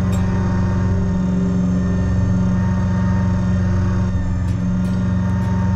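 Kubota BX25 sub-compact tractor's three-cylinder diesel engine running steadily while its backhoe is worked, with a few light clicks about three-quarters of the way through.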